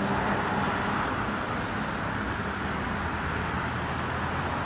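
Steady road traffic noise from cars passing on the street, with a vehicle engine's low hum that fades about halfway through and comes back near the end.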